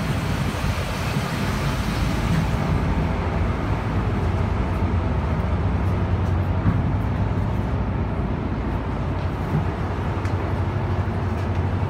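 Diesel engines of the passenger ferry Shin Nagisa 2 running steadily, a low hum. Wind hiss on the microphone eases off a couple of seconds in, and there are a few light knocks.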